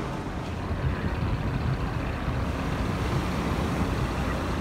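Steady low rumble of wind buffeting the phone's microphone, over the wash of ocean surf.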